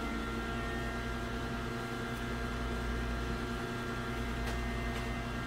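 Steady hum of a running machine holding several constant tones, with two faint clicks about four and a half and five seconds in.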